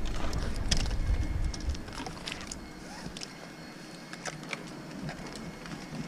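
Scattered light clicks and rubbing from a climbing rope and its metal hardware being handled, over a low rumble that fades out after about a second and a half.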